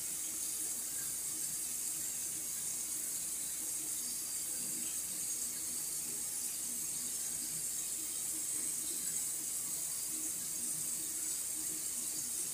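Kitchen faucet running steadily, an even hiss of water.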